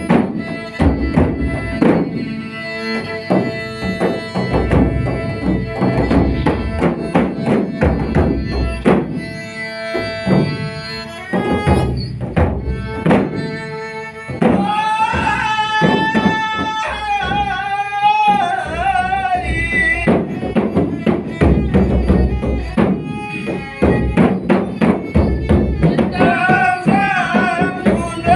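Malay dendang folk music: a drum-driven instrumental passage with a steady melodic accompaniment. About halfway in, a long, wavering melodic line comes in over it.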